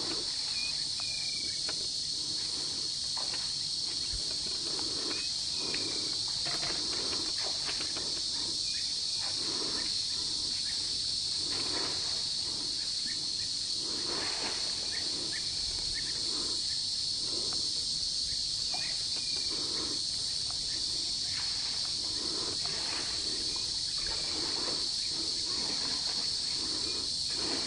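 Steady, high-pitched drone of an insect chorus, with irregular splashing and sloshing of water as an African elephant and her calf move in the shallows of a water hole.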